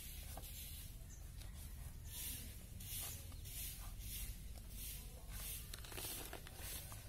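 Faint scraping and tearing as a knife slices a goat's hide away from the carcass, with scattered small clicks, over a high hiss that pulses about twice a second.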